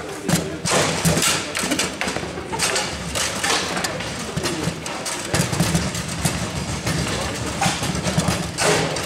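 Table football match in play: irregular sharp clacks and knocks of the ball being struck by the rod figures and hitting the table sides, with voices chattering behind.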